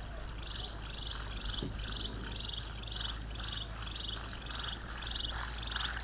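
An animal calling: a steady series of short, high-pitched buzzy chirps, about two a second, each one a fast trill.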